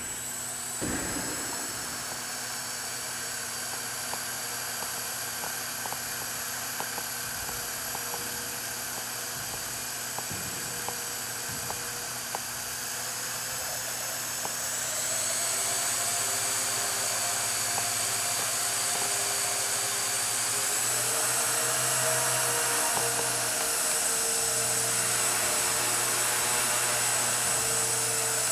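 Walkera 4G6S micro RC helicopter's electric motor and rotor blades whining at a high pitch. About 15 seconds in the whine rises in pitch and gets louder, and louder again near 21 seconds, as the helicopter takes to the air.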